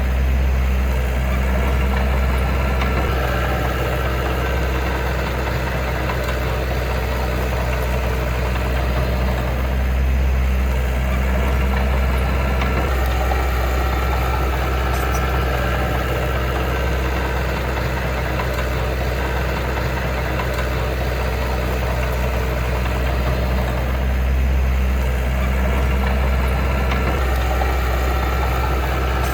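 Diesel engine of heavy earthmoving machinery, a bulldozer or dump truck, running steadily with a deep, even hum.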